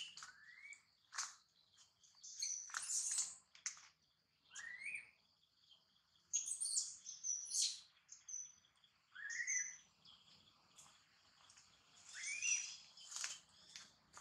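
Birds chirping in the forest: scattered short, high chirps and several brief calls that rise quickly in pitch, with quiet gaps between them.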